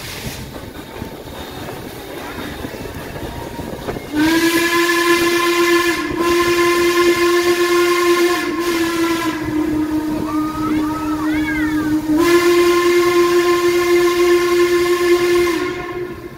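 Baldwin 2-6-6-2 steam locomotive's whistle blowing one long blast of about eleven seconds, starting about four seconds in over the train's running noise, with two brief dips and its pitch sagging slightly midway before it cuts off. Heard close up from an open car just behind the locomotive.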